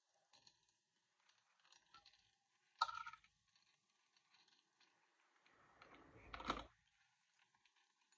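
Spinnerbaits and a small plastic bag being handled over a plastic tackle box tray: faint clicks and light rustling, a sharper click about three seconds in, and a louder rustle and bump a little past halfway.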